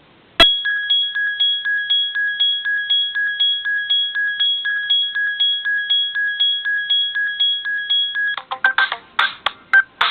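Ringtones playing from a Prestigio MultiPhone 4020 DUO's speaker. About half a second in, an electronic ringtone starts, repeating short high beeps on two alternating pitches at about three a second. Near the end it switches to a different ringtone, a clicky, percussive tune.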